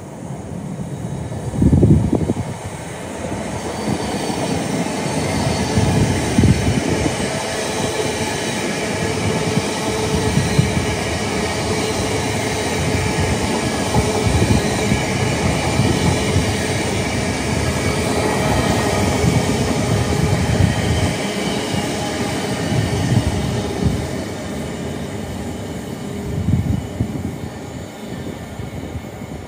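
A train passing along the main line: steady running noise of wheels on rail with steady tones and repeated low thuds. It builds over the first few seconds and eases off near the end.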